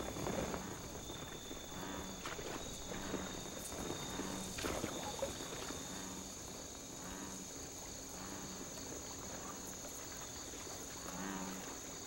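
Night insects trilling in a steady, high-pitched chorus, with a faint low note repeating irregularly beneath it and a few soft taps.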